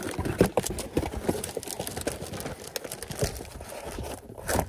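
Reflective blackout window covers crinkling and rustling as they are handled and fitted into a car's windows, with many small clicks and knocks.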